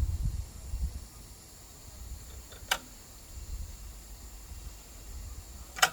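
Two sharp clicks about three seconds apart from a locking collar on a SKAM 12 pneumatic telescopic mast as a section is raised by air, over a low rumble. The clicking comes from a collar with only one of its two catches opened.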